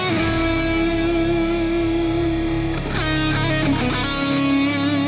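Electric guitar playing a solo in C# minor: a long held note, then a quick run of notes with slides about three seconds in, settling on another held note.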